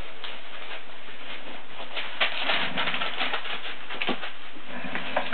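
Weimaraner puppies scrabbling and rustling in shredded-paper bedding: many short scratchy rustles over a steady hiss, busiest about two to three seconds in.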